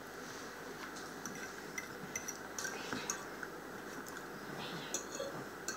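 A metal fork clinking and scraping faintly against a ceramic plate a few times, with quiet chewing of baked beans.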